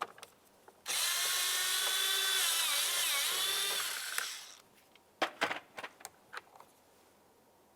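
Cordless drill-driver with a T27 Torx bit running for about three and a half seconds, unscrewing the interior door handle's mounting screw, its whine dipping in pitch briefly under load. A few light clicks follow as the screw comes free and the tool is handled.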